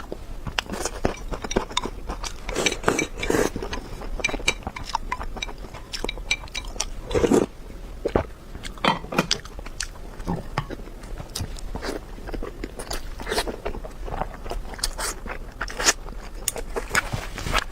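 Close-miked eating sounds: a person biting and chewing, with many irregular crisp clicks, crunches and wet mouth smacks.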